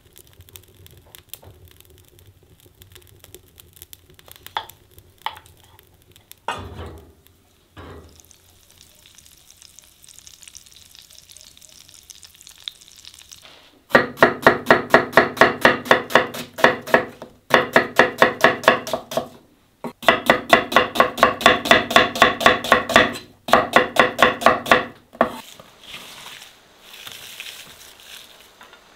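Knife slicing an onion on a wooden cutting board: quick, even strokes, several a second, in runs of a few seconds with short breaks, starting about halfway through. Before that, a wood fire crackles quietly in a cast-iron stove with a few light knocks.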